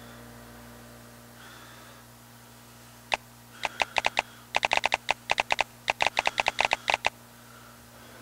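A rapid, irregular series of sharp clicks, about two dozen in four seconds, starting about three seconds in, over a low steady hum.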